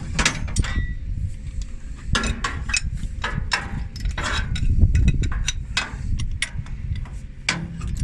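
Wrench working on hydraulic fittings: irregular metallic clicks and clinks as a T fitting is tightened onto a quick coupler, over a low handling rumble.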